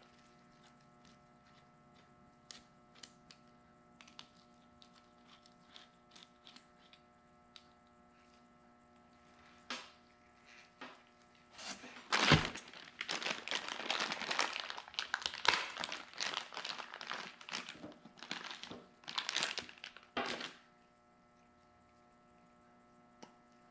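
Scattered light clicks of metal parts handled on a bench. About twelve seconds in comes a sharp knock, then some eight seconds of a plastic parts bag crinkling and rustling as hydraulic fittings are taken out of it.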